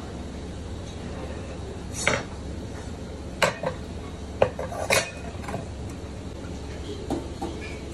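Metal and wood knocking and clinking: a slotted steel grate, a square steel rod and a metal disc set down and fitted onto a wooden serving board, several separate sharp knocks over a steady low hum.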